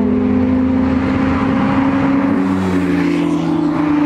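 Porsche 911 GT3 RS's flat-six engine held at steady revs as the car approaches, its pitch creeping slowly upward as it draws closer.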